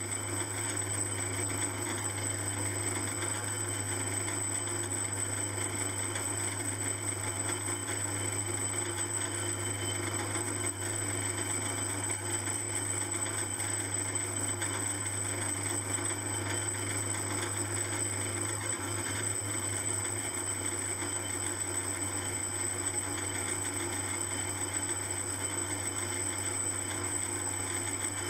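Small metalworking lathe running steadily, turning a model-engine flywheel while the tool takes a light facing skim across the side of its rim, with a steady hum and a high whine.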